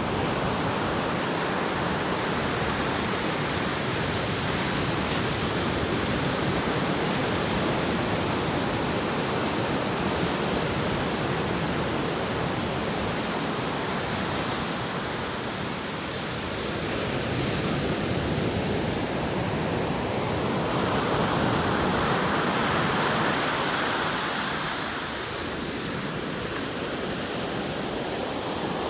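Atlantic Ocean surf: a steady wash of breaking waves that swells and eases slowly, with one stronger wave surging in around two-thirds of the way through.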